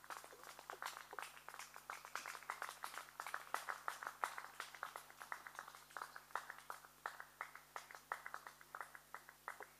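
Faint, dense chirping from small animals: many short, quick chirps a second in an irregular run.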